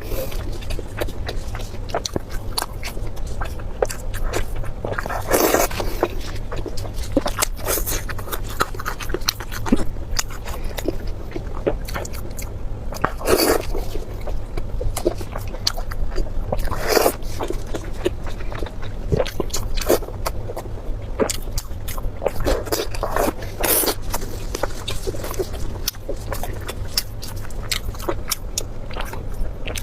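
Close-miked eating: a person chewing and biting with many small wet mouth clicks, and a few louder crunching or slurping bursts, over a low steady hum.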